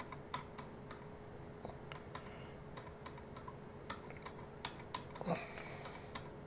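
Light, irregular clicks and taps of small parts and tools being handled on a workbench over a faint steady hum, with one short, louder scrape a little after five seconds in.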